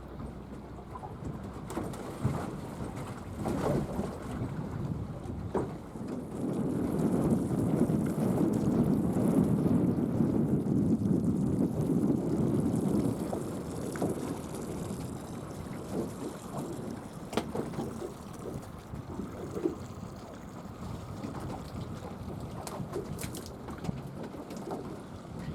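Wind rumbling on the microphone on an open boat, swelling for several seconds in the middle, with scattered small knocks.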